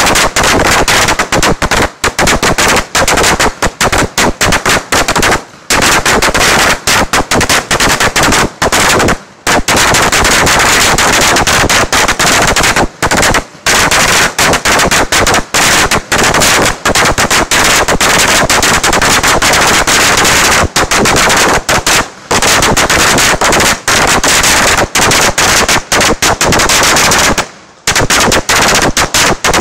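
A string of 3000 firecrackers going off in a dense, rapid crackle of sharp bangs, with a few brief gaps of a fraction of a second.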